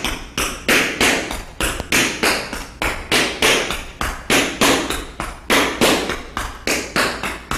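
Metal tap shoes striking a hardwood floor in a steady, even rhythm of about three taps a second: a tap dancer working through the star, a step built from ball changes shifting weight from foot to foot.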